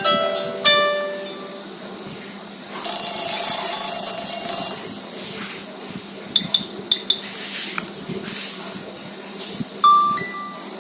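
Nokia 3120 classic phone playing short alert tones through its small speaker. Two plucked notes at the start are followed about three seconds in by a bright chime held for two seconds. Then come a few quick clicks, and a short beep near the end.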